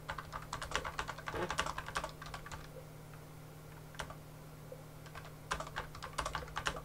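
Typing on a computer keyboard: quick runs of key clicks, a pause of about three seconds broken by a single keystroke, then another run of typing near the end. A faint steady low hum lies underneath.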